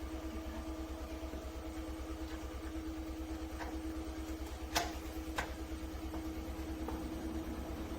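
Kitchen extractor hood's fan running with a steady hum, and two sharp clicks a little past halfway.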